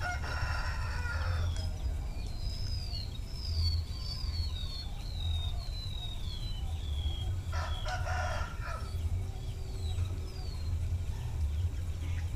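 A rooster crowing twice, once at the start and again about seven and a half seconds in, each call lasting about a second and a half. Between the crows a small bird gives a run of high, falling chirps.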